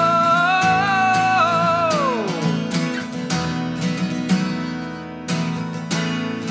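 A man's voice holds a sung note over a strummed acoustic guitar. About two seconds in the note slides down and fades out, and the guitar strumming carries on alone.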